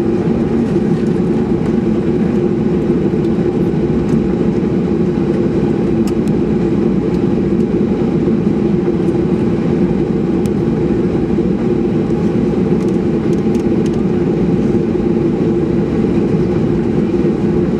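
Steady drone inside the cabin of a Boeing 737-800, its CFM56-7B jet engines running with a constant low hum and no change in level.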